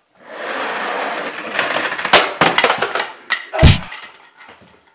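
Fist-fight hits. A hiss of noise for about a second and a half, then a quick run of sharp smacks and cracks, ending in one heavy, deep thump about three and a half seconds in.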